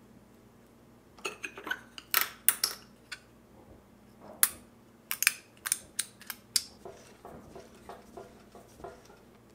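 Small metal parts clinking against each other in a hand and being dropped one at a time into a shallow metal dish: a run of sharp metallic clinks and taps, fainter toward the end.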